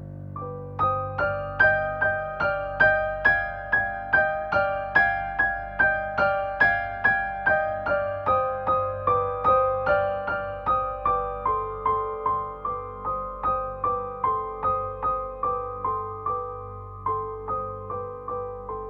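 Background music: a gentle piano or electric-piano melody of evenly paced single notes, each note dying away before the next, over a low steady hum.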